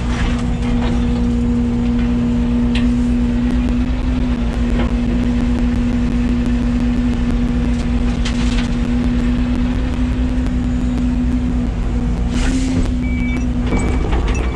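Yanmar ViO80 excavator's diesel engine running steadily under working load while grading, with a steady whine over a low rumble. A few short high beeps sound near the end.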